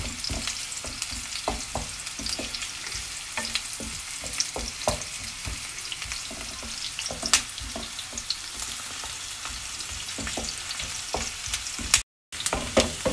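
Sliced red onions frying in hot oil in a pan, crackling and sizzling, with the scrape and knock of a wooden spatula as they are stirred. They are being taken only to a light pink, and the sound cuts out briefly near the end.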